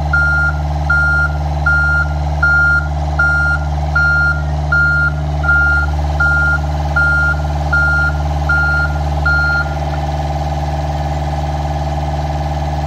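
Backup alarm beeping at a steady pace of about one and a half beeps a second over the steady running engine of the heavy machine lowering a rebar cage on a chain; the beeping stops about ten seconds in while the engine runs on.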